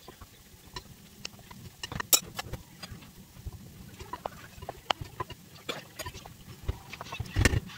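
Wooden spoon stirring pasta salad in a large glass mixing bowl: irregular light clicks and taps of the spoon against the glass, with a louder knock near the end.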